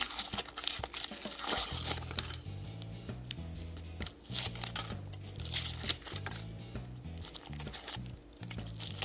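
Foil wrapper of a chocolate surprise egg crinkling and tearing as it is peeled off, in many short rustles, over background music with a stepping bass line.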